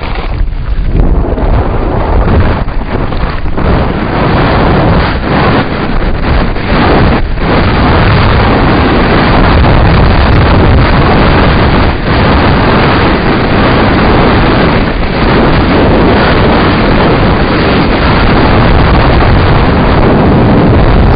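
Loud wind buffeting on the microphone of a mountain bike's onboard camera during a fast descent, mixed with the rattle of tyres and bike over a gravel track.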